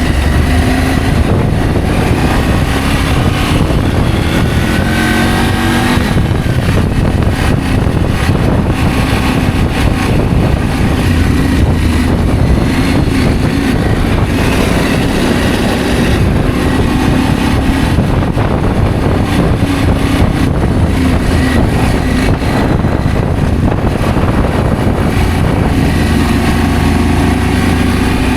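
Adventure motorcycle engine running on the move, revving up through the gears several times, with wind rumble on the microphone.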